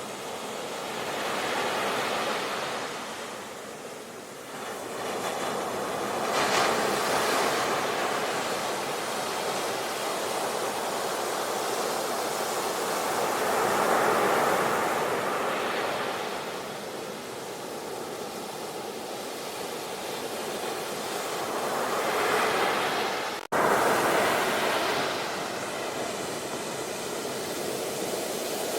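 Ocean surf: waves breaking and washing in, swelling and ebbing every several seconds, with a momentary cut in the sound a little after two-thirds of the way through.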